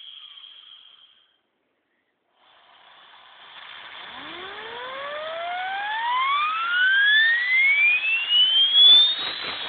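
High-speed grinding spindle of a Yuasa jig grinder spinning up. A whine fades out in the first second and there is a moment of silence; then a hiss builds and a whine rises steadily in pitch from low to very high over about five seconds, getting louder as it climbs.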